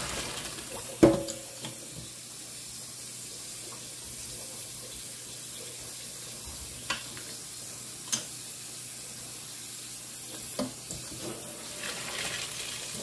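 Tap water running into a stainless steel sink while boiled elbow macaroni and its cooking water are poured from a pot into a plastic colander. A sharp knock about a second in, with a few lighter clicks later.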